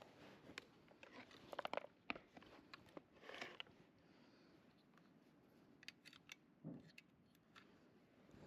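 Faint handling noises of small tools and parts: a run of small clicks about one and a half to two seconds in, a short scraping rasp, then a few more clicks and a soft thump later.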